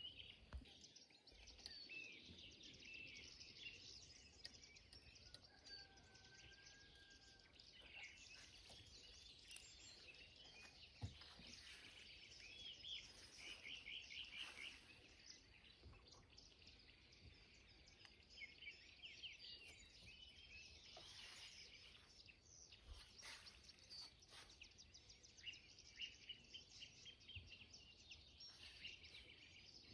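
Faint birdsong: several small birds chirping, with quick trills repeating now and then, over a few soft clicks and rustles.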